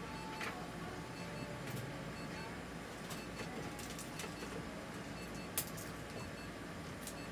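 Steady low machine hum with scattered light clicks and taps; the sharpest click comes about five and a half seconds in.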